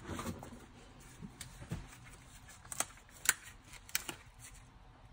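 Handling of a plastic quart bottle of motor oil between pours: soft rustling and three sharp plastic clicks in the second half, the middle one the loudest.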